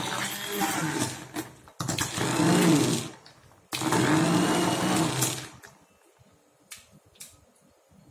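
Electric hand blender running in a glass bowl, blending cold milk, coffee, ice cream and ice cubes into cold coffee. It runs in three bursts: a short break just under two seconds in, a longer one around three seconds, then it stops about five and a half seconds in. A couple of faint clicks follow.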